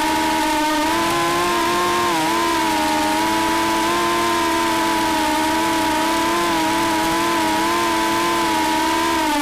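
FPV drone's electric motors and propellers whining steadily, the pitch wavering slightly with the throttle and dipping briefly about two seconds in.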